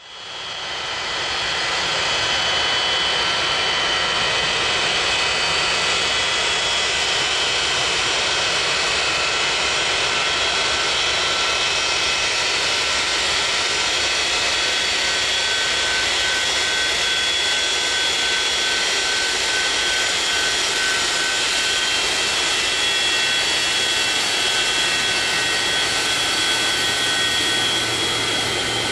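Boeing 727-200's three Pratt & Whitney JT8D turbofans running: a steady high-pitched whine over a loud rushing jet noise, which fades in over the first couple of seconds.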